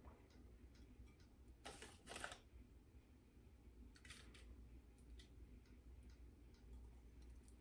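Near silence, with a few faint, brief swishes and light clicks as crumb topping is scooped by hand from a metal mixing bowl and sprinkled over batter. Two swishes come close together about two seconds in, and another about four seconds in.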